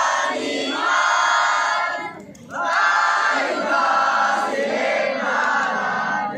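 A group of voices chanting together in long held phrases, with a short break about two seconds in.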